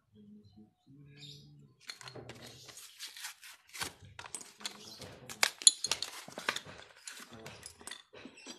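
Irregular metallic clicks and clinks of brake pads and a scooter's front disc-brake caliper being handled and fitted, with a faint low hum in the first couple of seconds.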